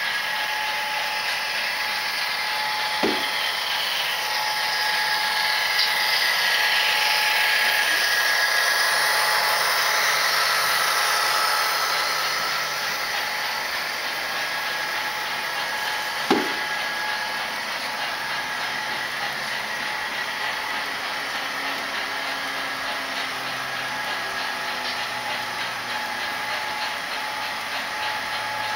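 HO scale model freight train rolling past on the track: a steady whirring of wheels and motor with a constant hum-like tone, loudest for several seconds as the locomotive goes by. Two sharp clicks come about 3 and 16 seconds in.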